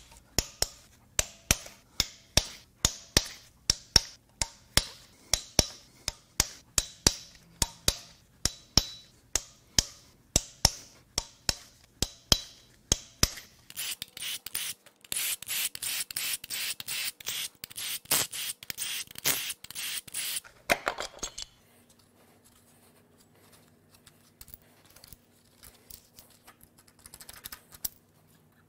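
Hand ratchet clicking at a steady two or so clicks a second as the cam cap bolts on a 2.7 L EcoBoost V6 cylinder head are broken loose. About halfway through, a cordless power ratchet runs in a dense clattering stretch of about seven seconds, spinning the bolts out. After it stops there are only a few faint small clicks.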